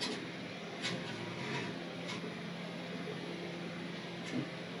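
Microwave oven running with tin foil inside: a steady electrical hum, mixed with fans, and a few faint brief crackles from the foil arcing.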